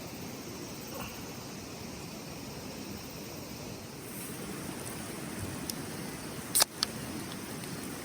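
Steady rushing outdoor noise, with two sharp clicks close together about six and a half seconds in.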